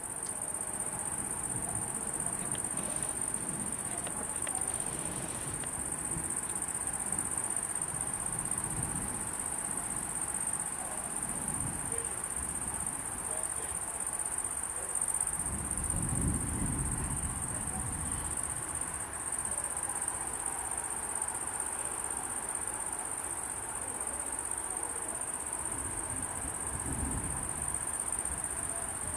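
Steady, high-pitched chorus of night insects, with a low rumble of thunder about halfway through.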